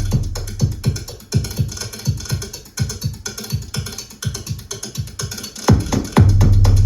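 Electronic music track playing over TAD-E1AX hi-fi loudspeakers, in an instrumental stretch without vocals. Steady programmed drum hits run throughout. A deep sustained bass note fades over the first second and comes back strongly about six seconds in.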